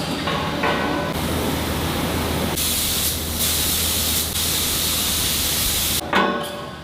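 Workshop hiss, steady at first, that turns much louder and higher about two and a half seconds in and stops about six seconds in, followed by a metallic clank that rings on.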